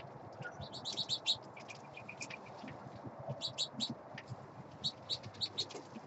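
Small birds chirping: short, high chirps in quick runs about a second in, around three and a half seconds in and near five seconds in.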